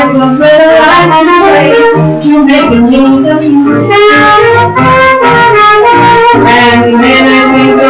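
Swing jazz music, with horns playing the melody over a full band.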